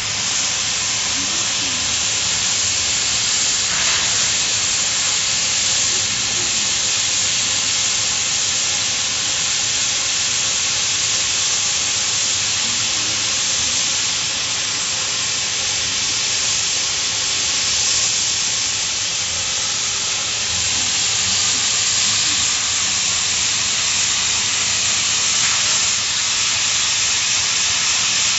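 Oxy-fuel cutting torch on a DigiCut CNC profile cutting machine, cutting through steel plate with a steady hiss of the gas jet, unbroken throughout, with a faint steady hum beneath it.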